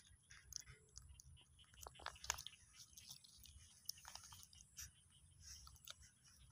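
Baby macaque faintly chewing and biting its food, in scattered small clicks and crackles.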